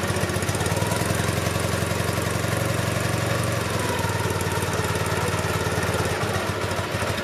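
Dnepr MT motorcycle's flat-twin (boxer) engine idling steadily, heard close to its exhaust muffler.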